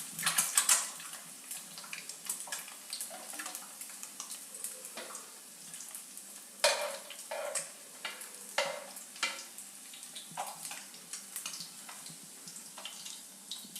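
Halved boiled egg whites frying in oil in a pan, with a faint steady sizzle. A metal spatula scrapes and taps against the pan now and then as the pieces are turned.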